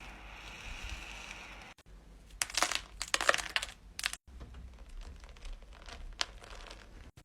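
Crinkling and rustling, loudest in a dense burst a few seconds in, then lighter scattered rustles and small clicks, after a short stretch of soft hiss.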